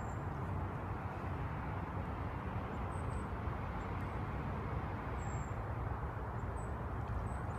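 Steady, even background noise with a strong low rumble and no distinct events, the kind of sound an outdoor field recording picks up.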